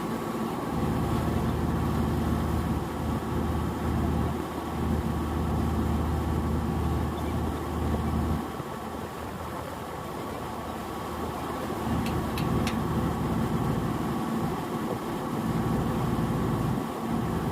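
An engine running steadily with a low hum, which drops back sharply about eight seconds in and keeps running more quietly. Two or three sharp clicks come about two-thirds of the way through.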